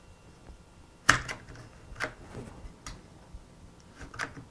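A bar clamp being fitted and tightened onto pine boards: a handful of sharp, irregular clicks and knocks of the clamp's mechanism and of clamp against wood, the loudest about a second in.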